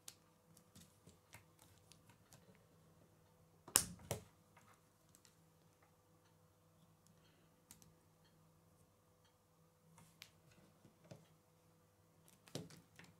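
K'nex plastic rods and connectors being handled and snapped together: scattered light clicks, with two louder snaps about four seconds in and another near the end.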